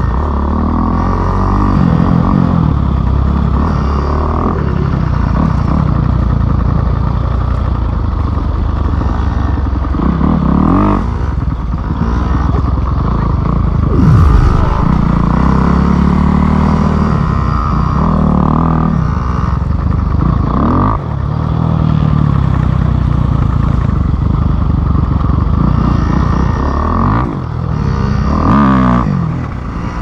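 Dirt bike engine running, its revs rising and falling several times, with one sharp knock about halfway through.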